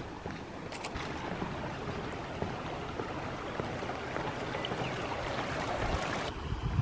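Shallow creek flowing over gravel, a steady rush of running water that cuts off suddenly near the end.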